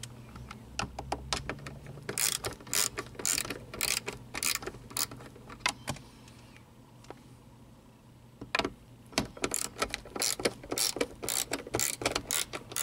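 Socket ratchet clicking in quick irregular runs as 8 mm bolts are backed out of a car's overhead console. There is a pause of about two seconds in the middle, then the clicking starts again.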